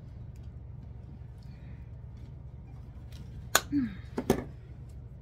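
Wire cutters snapping through the wire stem of an artificial flower: a sharp snap about three and a half seconds in, then a second click under a second later, over a steady low hum.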